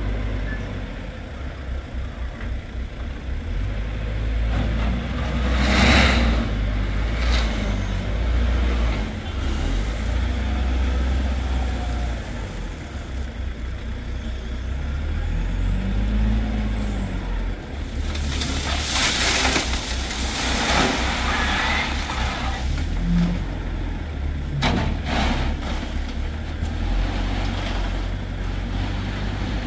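A heavy vehicle engine running with a steady low rumble, its pitch rising and falling briefly about halfway through. Loud blasts of hissing air come about six seconds in and again for a few seconds past the middle, and a few sharp knocks sound near the end.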